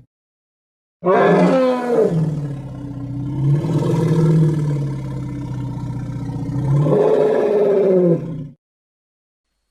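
Zuniceratops dinosaur sound effect: one long, low creature call about seven seconds long, starting about a second in, its pitch dropping early on and rising again near the end before it cuts off.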